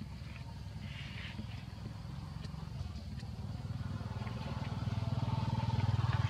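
An engine running off-screen, low and steady, growing louder from about four seconds in, with a thin higher whine joining it near the end.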